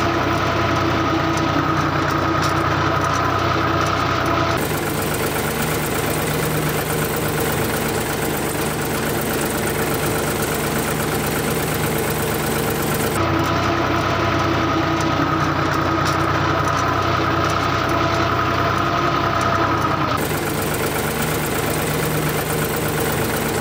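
Motor of a DIY model tractor running steadily, a constant hum whose tone changes abruptly about four seconds in, again around thirteen seconds and again around twenty seconds.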